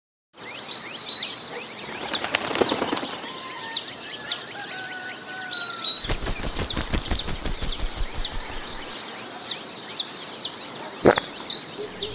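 Birdsong ambience: many small birds chirping in quick, high, downward-sweeping notes, with a few longer whistled notes lower down. A single sharp click near the end.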